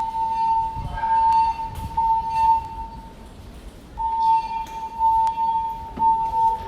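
Fire alarm evacuation tone from a building's voice-evacuation speakers: a loud, steady, high tone sounding in groups of three pulses with a pause of about a second between groups. This is the temporal-three evacuation pattern played between the recorded evacuation announcements.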